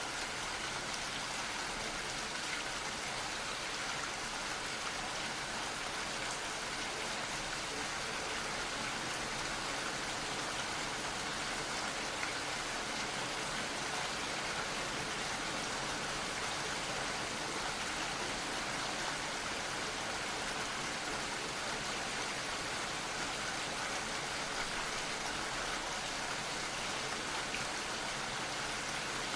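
Gentle, steady rain falling, a soft even hiss of drops without pause or change.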